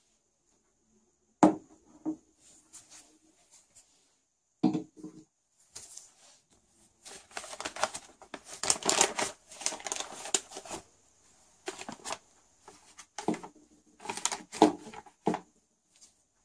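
Pour-over coffee gear being set up on a table: a few sharp knocks as a glass coffee server and a dripper are put down, then crinkling as a paper coffee filter is folded and fitted into the dripper, with a few more knocks near the end as it is settled.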